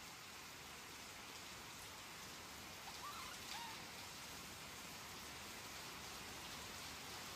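Rain falling steadily, an even hiss of drops on the ground and foliage, with a brief faint chirp about three seconds in.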